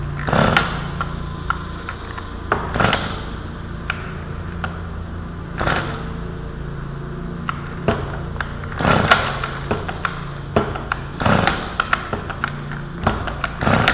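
Starter cord of a small Stihl chainsaw's spring-assisted pull start being pulled about six times, a few seconds apart, each pull a short burst of noise; the engine does not catch between pulls.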